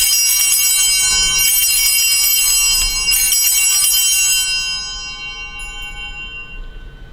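Altar bells rung at the elevation of the chalice after the consecration. They are shaken three times, about a second and a half apart, and the ringing then fades away over the last couple of seconds.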